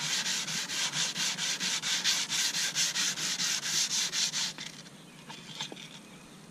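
Hand sanding with sandpaper on the black-painted rear taillight panel of a Nissan 300ZX, taking the paint back off: quick, even back-and-forth scratching strokes that stop about four and a half seconds in.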